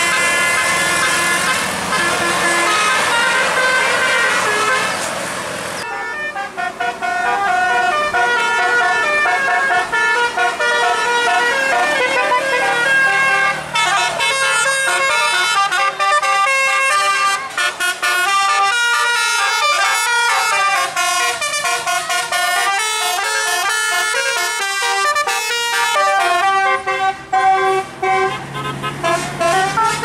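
Tour-bus Basuri telolet horns playing quick melodic tunes of several trumpet notes. The notes step from pitch to pitch every fraction of a second. About six seconds in, the sound changes from a dense, sustained chord of horn notes to a faster run of separate notes.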